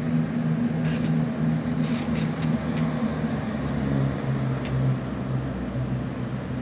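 Class 170 Turbostar diesel multiple unit's underfloor diesel engines running as it pulls away, a steady low drone that drops in pitch about four seconds in. A few light clicks sound in the first few seconds.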